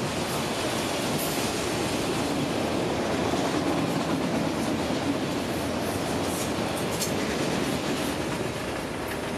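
Autorack cars of a CSX freight train rolling past close by: a steady noise of steel wheels on the rails, with a few brief high squeaks. It eases slightly near the end as the tail of the train draws away.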